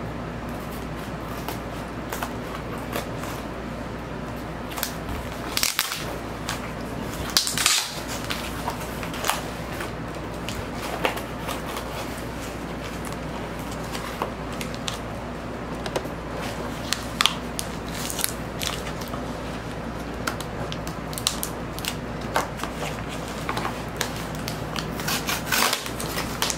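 Scissors cutting through a cardboard record mailer, with irregular crackles and snips as the cardboard gives. Near the end the cut cardboard flaps are pulled apart by hand.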